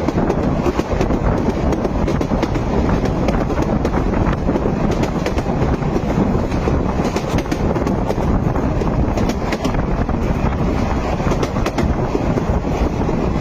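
A train running along the track: a steady rumble with many scattered clicks.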